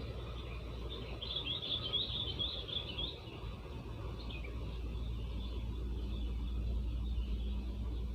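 Strong wind buffeting the microphone, a steady low rumble, while a small bird gives a rapid run of high chirps about a second in, lasting about two seconds.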